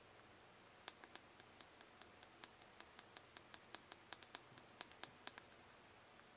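A quick series of small, sharp button clicks, about five or six a second, from a button being pressed over and over; they start about a second in and stop near the end.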